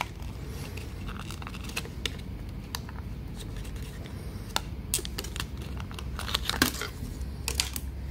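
Scattered small clicks and taps of a laptop RAM module being handled and fitted into its single slot, with a quick cluster of clicks near the end.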